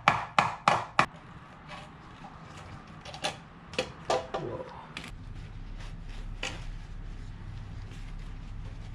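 Hammer taps on a screwdriver, driving out an old seal in a car engine's valve cover and tapping a new one in: four quick taps about three a second at the start, then a few scattered single taps. A faint low hum comes in about halfway.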